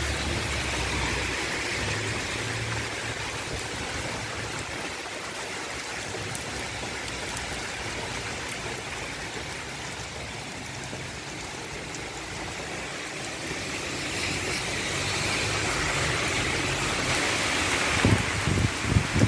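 Heavy rain falling steadily, hissing on the street, pavement and trees. Near the start a car drives past on the flooded road, its tyres swishing through the water. The rain grows louder toward the end, and a few thumps hit the microphone in the last second or so.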